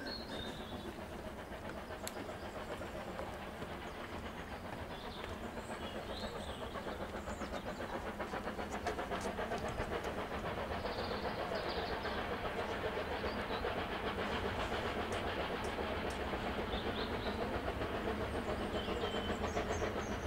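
Steam tank locomotive hauling a train as it approaches, its working and wheels on the rails growing steadily louder. Birds chirp briefly a few times in the background.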